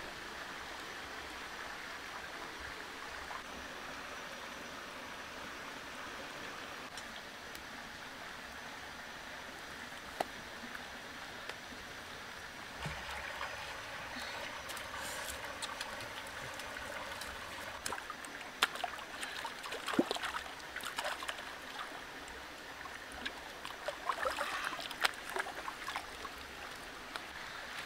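Shallow rocky stream running steadily, with irregular splashes and drips in the second half as a fish is rinsed in the water.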